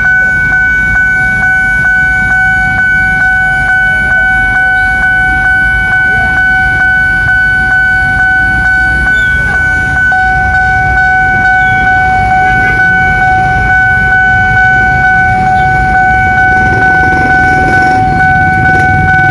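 Railway level-crossing warning alarm sounding steadily: a ringing tone pulsing about twice a second while the barriers are down and a train is due. Waiting road traffic rumbles beneath it, and a deeper rumble builds near the end.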